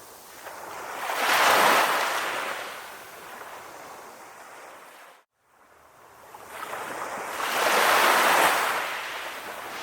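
Sea waves surging in, two waves swelling up and washing away, the first peaking about a second and a half in and the second near the end. The sound cuts out to silence for a moment around the middle.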